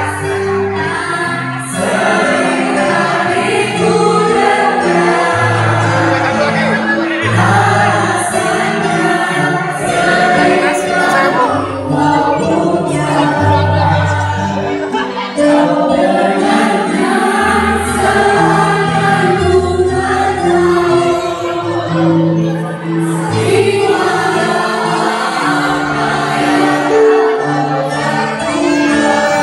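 A choir singing with musical accompaniment, held notes in several voices over a bass line that moves from note to note about every second.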